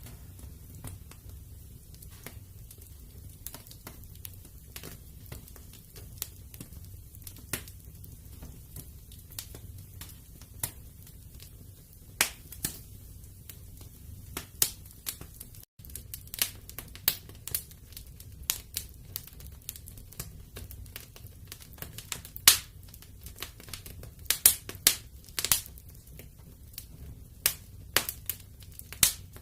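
Wood fire in a fireplace crackling: irregular sharp pops and snaps over a low steady rumble, the pops coming thicker and louder in the second half. The sound cuts out for an instant about halfway through.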